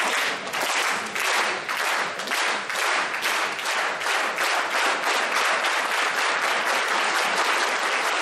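Crowd applauding, the clapping falling into a steady rhythm of a few claps a second.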